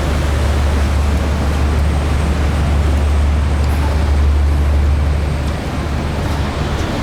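Engine running steadily with a deep low drone under a loud, even rushing noise that eases a little about five and a half seconds in.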